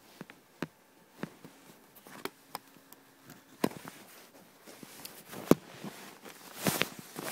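Eating cereal from a bowl with a spoon: irregular sharp clicks and knocks of spoon against bowl, the loudest about five and a half seconds in, with a few more near the end.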